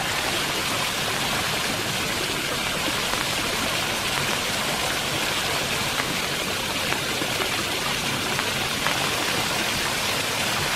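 Rainwater spilling over a rock ledge in a small waterfall and dripping from the overhang: a steady splashing rush of water with a few sharper drips.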